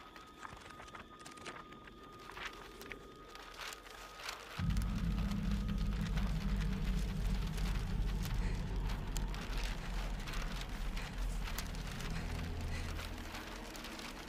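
Horror-film sound design: scattered ticks and clicks at first, then a deep low rumble that starts suddenly about four and a half seconds in and holds, with a dense crackling patter over it.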